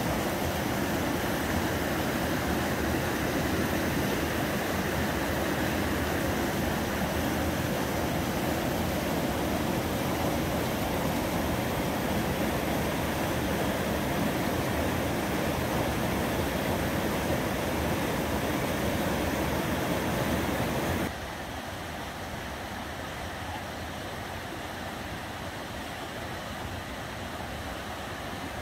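River rapids, water rushing steadily. About twenty seconds in, the sound drops suddenly to a quieter, duller rush.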